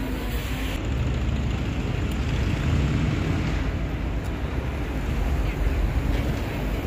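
Steady low rumble of city street traffic around a busy square.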